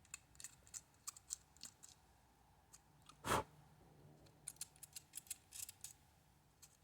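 Faint, irregular scratching and clicking as corrosion is scraped off the metal battery contacts of a small plastic toy's battery case. There is one louder scrape about three seconds in.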